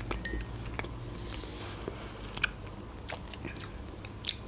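Close-up chewing of a soft Barni sponge-cake bear, with small wet mouth clicks. A bite into it comes near the end.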